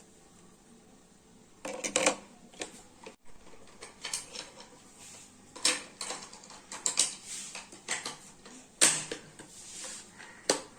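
Hard plastic toy parts and packaging being handled: irregular clicks and clatters mixed with short rustles.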